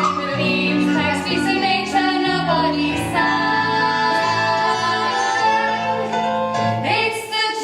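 Musical-theatre song: singing over instrumental accompaniment, with long held notes.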